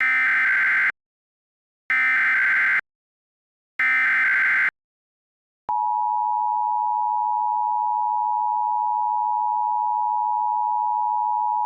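Emergency Alert System broadcast: three bursts of SAME header data, each a harsh digital warble about a second long, repeated a second apart. About six seconds in, the steady two-tone EAS attention signal starts and holds, heralding a winter storm warning.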